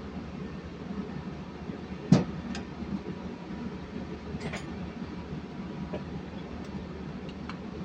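A sharp metallic knock about two seconds in, then a few lighter clinks of tools and metal engine parts being handled, over a steady low hum.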